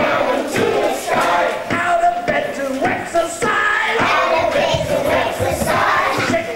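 A group of young kindergarten children singing together, loud and a little shouty, as a children's choir.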